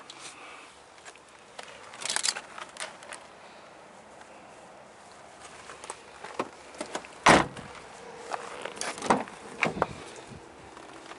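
Scattered clicks, knocks and footsteps from someone moving around and handling a car, with one loud thump about seven seconds in.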